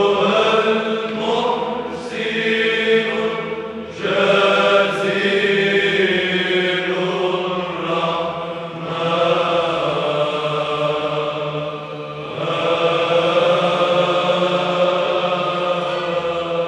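Choir singing Orthodox Byzantine chant in Arabic over a held low drone, in long sustained phrases that break briefly about 4, 8 and 12 seconds in.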